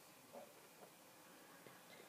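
Near silence: room tone, with a few faint soft ticks.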